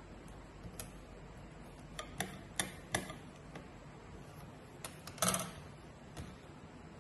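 Scissors cutting paper and being handled on a hard tabletop: a scattered series of sharp clicks and snips. The loudest is a short cluster about five seconds in.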